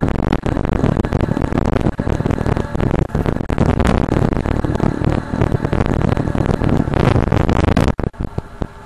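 Motorcycle riding along a road at speed: the engine's low drone under heavy, gusty wind buffeting on the microphone. The noise drops away sharply for about a second near the end.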